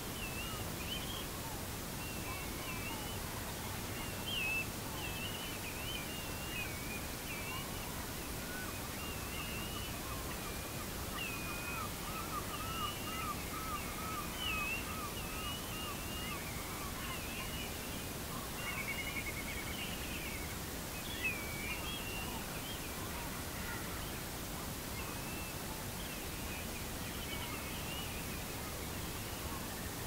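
A flock of sandpipers and plovers calling: many overlapping short, high, wavering calls, joined through the middle by a lower series of quickly repeated notes, over a steady background hiss.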